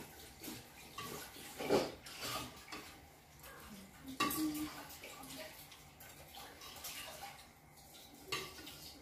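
Spoons and chopsticks clinking against ceramic soup bowls during a meal: scattered light knocks, with sharper clinks at about two and four seconds in.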